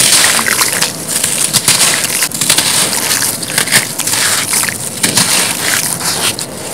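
Hands crushing soft chunks of grey cement block and gritty sand: a dense, continuous gritty crunching and crackling of many small breaks, with crumbs dropping into a puddle of wet cement slurry.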